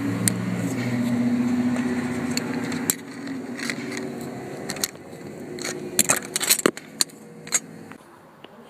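Sharp clicks and knocks of small hard parts being handled as a headlight switch is worked apart with pliers. Under them, a low vehicle-like hum fades out about three seconds in.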